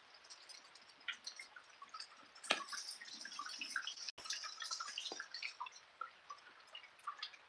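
Light rain falling, drops dripping and pattering in many scattered small ticks, with one louder knock about two and a half seconds in.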